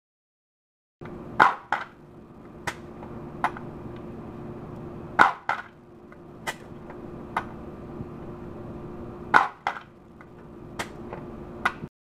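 Antweight combat robot's pneumatic flipper firing three times, about four seconds apart, each a sharp snap followed quickly by a second knock, with lighter clicks in between over a steady low hum.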